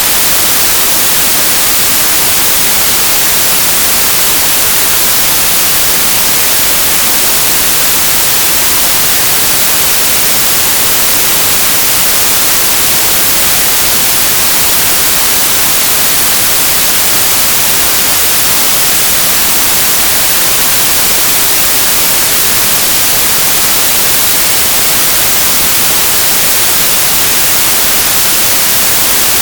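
Loud, steady static hiss like white noise, brighter in the treble, unchanging throughout with no other sound in it.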